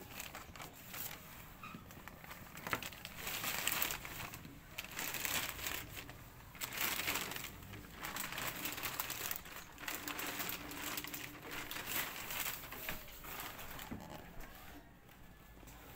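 Plastic courier bag and packaging crinkling and rustling in irregular bursts as a parcel is torn open and unwrapped by hand. The rustling quiets down near the end.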